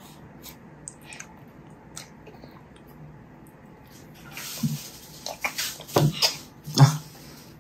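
Water running from a kitchen tap in the background, starting about four seconds in, with a few light knocks and clinks of kitchen things.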